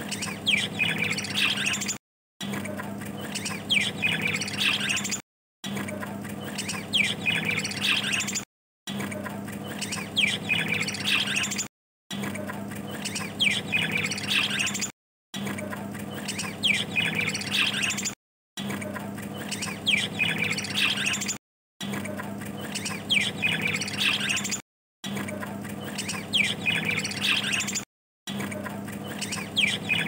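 A flock of budgerigars chirping and chattering, with quick squawks and warbles over a steady low hum. The same few seconds of chatter seem to repeat, cut by brief silences about every three seconds.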